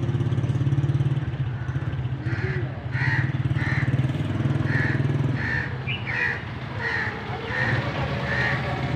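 A steady low engine hum runs throughout. From about two seconds in there is a run of about ten short, evenly spaced high-pitched sounds, roughly one every half second.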